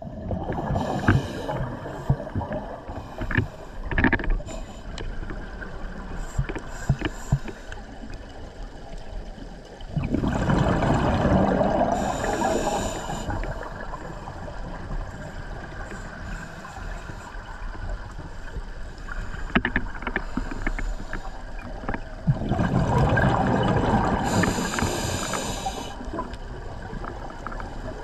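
A scuba diver breathing through a regulator, heard underwater: two long exhalations of bubbles about twelve seconds apart, with a steady hiss and small clicks between them.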